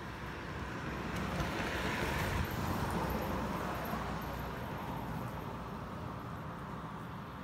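A road vehicle passing by: a broad rushing noise that swells over the first few seconds and then slowly fades.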